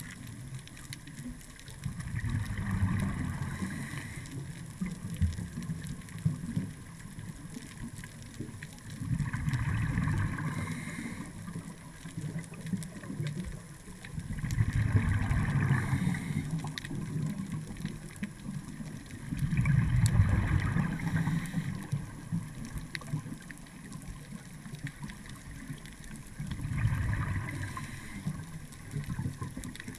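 Scuba diver's regulator underwater: five bubbling exhalations, each about two seconds long and roughly six seconds apart, with quieter stretches between breaths.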